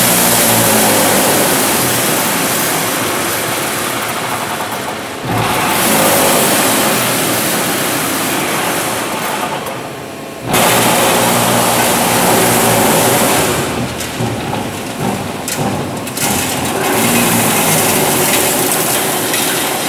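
Eurobend straight-and-cut machine running with a loud, continuous mechanical rush. The noise slowly fades and then jumps back up abruptly about five and again about ten seconds in, and turns uneven for a couple of seconds in the middle before steadying.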